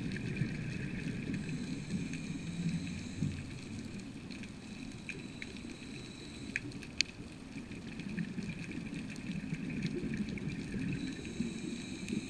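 Underwater ambience: a low, surging rush of water with a steady high-pitched whine over it, and a few sharp clicks around the middle.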